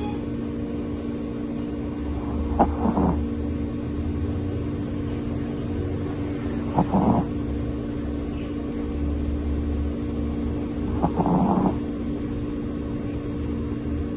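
A Shih Tzu snoring in deep sleep: three short snores, each about half a second, coming about four seconds apart over a steady background hum.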